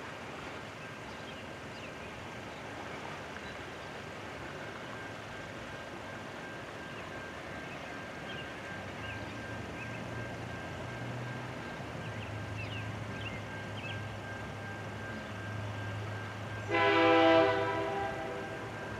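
An approaching CN diesel locomotive: a low rumble comes in about halfway through, then one short blast of its air horn, about a second long, near the end. Faint bird chirps in the background.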